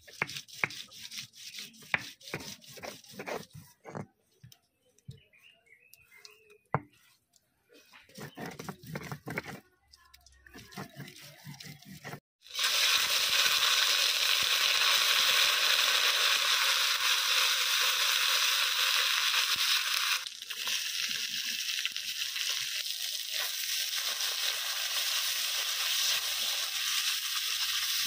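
Scraping and knocking strokes of a hand-held stone grinding paste on a flat stone grinding slab (shil-nora), for about twelve seconds. Then, after a cut, paste frying in hot oil in an iron wok: a steady, loud sizzle with a spatula stirring, dropping a little about twenty seconds in.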